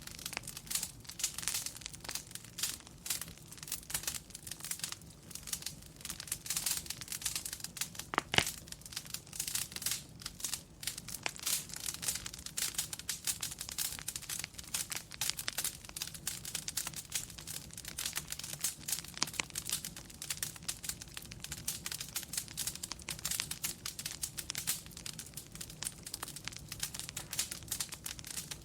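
Wood fire crackling, with dense irregular small pops and snaps over a low, steady rumble, and one sharper pop about eight seconds in.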